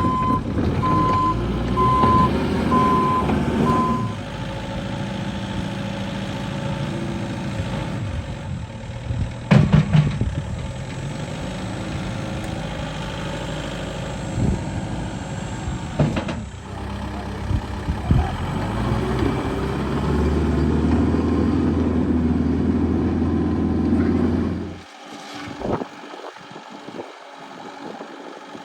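JCB 1CXT backhoe loader's diesel engine running, with its reversing alarm beeping steadily for the first few seconds. The engine note rises near the end, then drops away abruptly.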